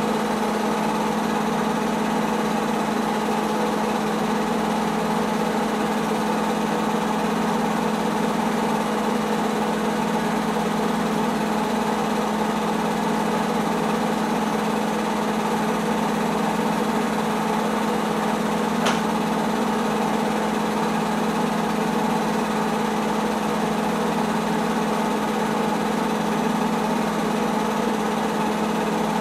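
Home-movie film projector running: a steady motor hum that never changes in level or pitch, with one faint click about two-thirds of the way through.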